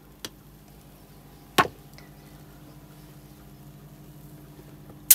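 Two sharp knocks, the louder one about one and a half seconds in, over a steady low hum: plastic kitchenware (the blender jar and tumbler) knocking as the milkshake is poured and handled.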